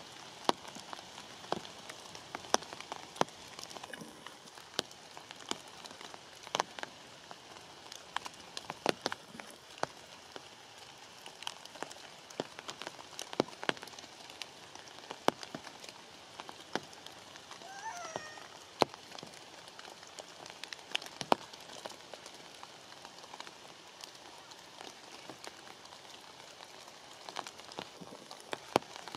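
Rain falling on leaves and branches: a steady patter with scattered sharp drop clicks. About eighteen seconds in, a brief faint call wavers in pitch.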